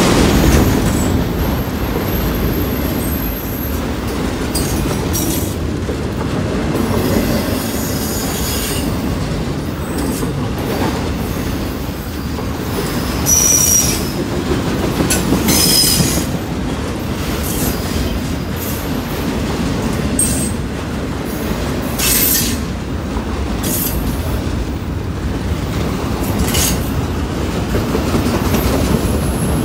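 Freight train of autorack cars rolling past close by: a steady rumble of wheels on rail, broken several times by short high-pitched wheel squeals, the loudest about halfway through.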